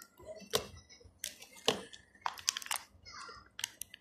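Small plastic clicks and short scrapes at irregular intervals: hands working at a tight-fitting Beyblade frame part, trying to pry it loose.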